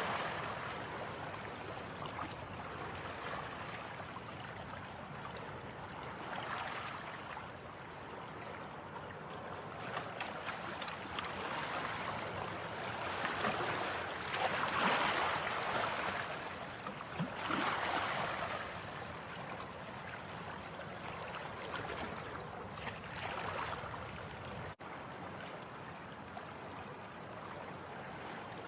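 Ocean surf: waves swelling and washing in every few seconds, a steady rush of water between them.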